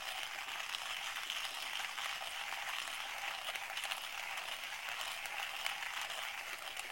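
Kyocera ceramic-burr hand coffee grinder being cranked, a steady dry grinding rasp with a few faint clicks, as the last bean in the nearly empty hopper is ground down.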